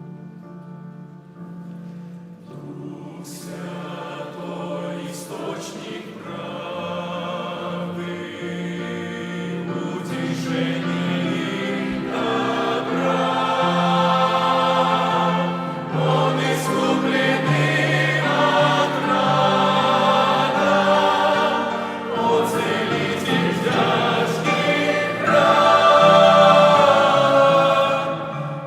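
Choir singing a Christian hymn over instrumental accompaniment, building in loudness to a peak near the end of the phrase before falling away.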